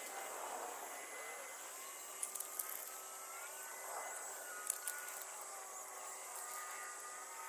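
Faint whine of the small electric motors of an RC toy excavator working, its pitch shifting slowly, with a few sharp clicks of gravel.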